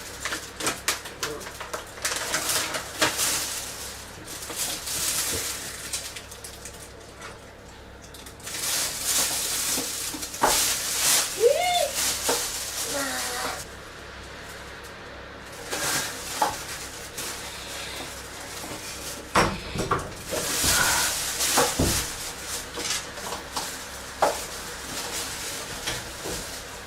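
A woman retching and vomiting: repeated noisy, wet heaves and gags, with a short groan that rises and falls near the middle.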